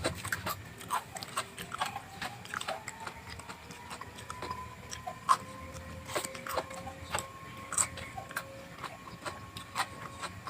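Close-up eating of vegetables: irregular crisp crunches and mouth clicks from chewing and biting. A faint steady tone sounds behind them.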